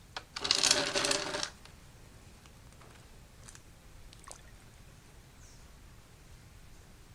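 A metallic clatter with a ringing tone, about a second long, as of a metal tool or part being set down or handled, followed by a couple of faint clicks.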